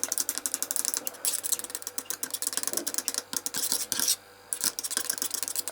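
Rapid scraping and clicking of a stick stirring liquid silicone lure plastic in a container, with a brief pause about four seconds in.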